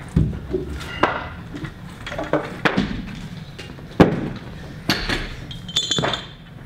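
Barbells and weight plates clanking: a series of sharp metallic clinks and thuds, the loudest about four seconds in.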